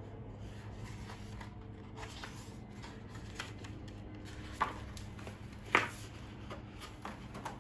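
Pages of a hardcover picture book being turned and handled: soft paper rustling with two sharper page snaps a little past halfway, over a faint steady low hum.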